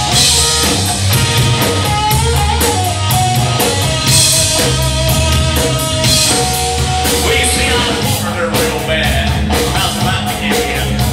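Live rock band playing: drum kit, electric bass and electric guitar, with a singer coming in near the end.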